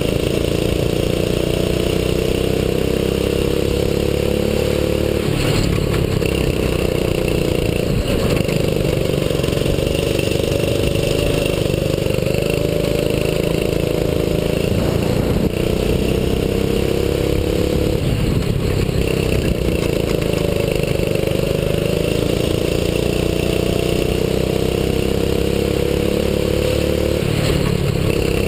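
Single-cylinder 6.5 hp four-stroke rental kart engine at full throttle, close to the microphone. Its pitch climbs slowly along each straight and drops sharply each time the throttle is lifted for a corner, a few times over.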